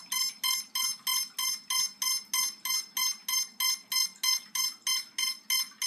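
Quadcopter electronic speed controllers beeping continuously during ESC calibration: a steady run of short, high beeps at about four a second.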